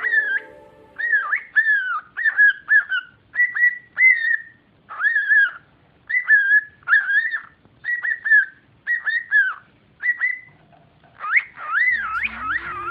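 Cockatiel whistling a string of short, warbling notes, each bending up and down in pitch, one or two a second with short pauses, ending in a quicker run.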